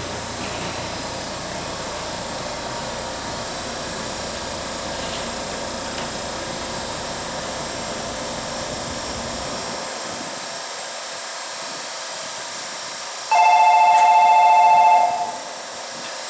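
A stopped 313-series electric train hums steadily at the platform, and the low part of the hum dies away about ten seconds in. About thirteen seconds in, a loud electronic platform departure bell rings on two steady tones for about two seconds, signalling that the train is about to leave.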